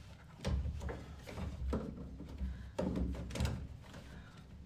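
Irregular knocks, clicks and rattles of parts being handled and fitted inside a washing machine during pump replacement, with low rumbling handling noise. The loudest knocks come about three seconds in.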